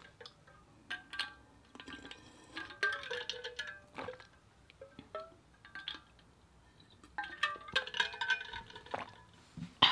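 Drinking from an insulated stainless-steel water bottle: gulps of liquid, with short ringing clinks from inside the bottle, heaviest about a second in, around three to four seconds in, and again near the end.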